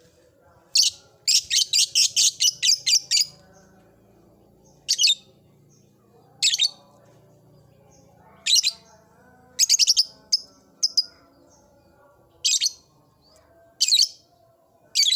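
Lovebird giving sharp, high-pitched chirps: a quick run of about nine a little after the start, then single calls every second or two.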